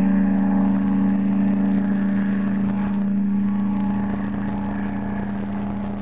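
The steamship Princess Marguerite's whistle blowing one long, steady blast: a deep chord of two low notes that eases off slightly toward the end.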